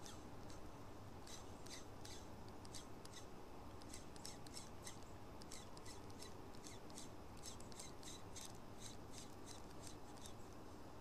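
Small spinning reel being cranked in short bursts as a micro jig is worked back, giving a rapid, irregular clicking.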